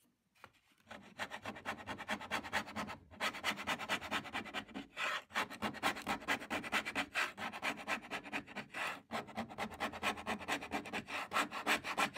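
Steel scraper scraping old hide glue and fabric off wooden tambour slats in rapid, repeated strokes, starting about a second in with a few brief breaks. The glue has been softened with white vinegar, so it is coming away as a sticky paste.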